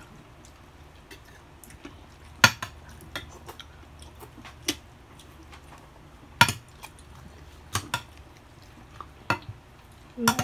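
Metal spoons and forks clinking and scraping against plates and a glass serving dish while people eat, with scattered sharp clinks. The loudest clinks come about two and a half and six and a half seconds in, over a low steady hum.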